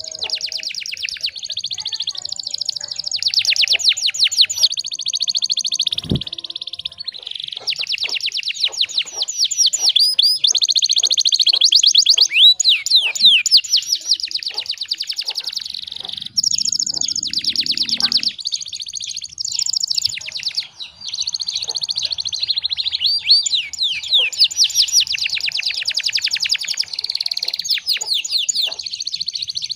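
Domestic canary singing one long, nearly unbroken song of fast high-pitched trills and rolls. There is a single dull knock about six seconds in.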